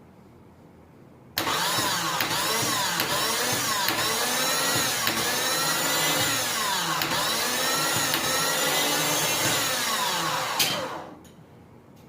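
Repaired 12-volt car starter motor bench-run: it switches on with a sudden click and spins with a loud, high whine that rises and falls in pitch about once a second. Near the end it cuts off with a click and winds down quickly.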